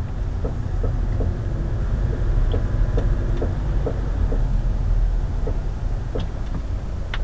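Car driving with a repeated knocking, about two to three knocks a second and sparser near the end, over steady road and engine rumble: a road wheel not properly tightened, wobbling on its hub.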